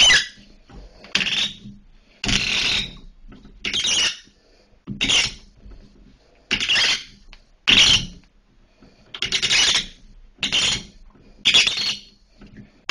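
A Moen shower cartridge and cartridge puller squeaking as they are twisted in the valve body, in about ten short strokes, roughly one a second. The cartridge is being worked loose and drawn out of the tub-and-shower valve.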